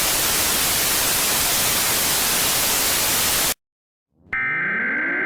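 A loud, steady burst of static hiss that cuts off suddenly about three and a half seconds in. After a short silence a siren starts, rising in pitch, with a steady high tone above it.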